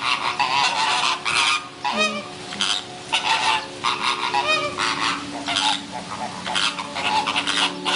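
A flock of waterfowl calling over and over, many loud calls overlapping in quick succession, over steady background music.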